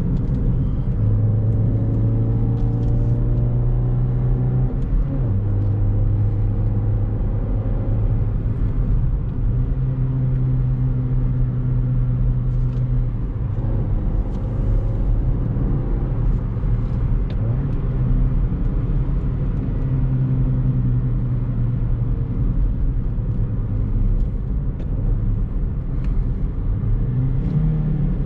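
Chevrolet Beat's petrol engine, breathing through a K&N aftermarket air filter, pulls steadily on the road with tyre and road rumble. Its drone shifts pitch briefly a few times.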